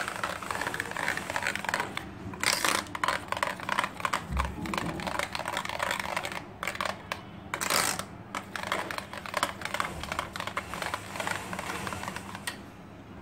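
A metal spoon stirring thick yogurt in a stainless-steel bowl, clicking and scraping against the metal in quick, irregular strokes. There are a few louder clusters, and the stirring stops near the end.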